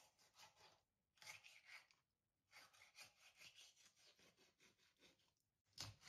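Kitchen knife cutting through a raw whole chicken on a plastic cutting board. The cutting is faint and comes in three spells, with a thump near the end.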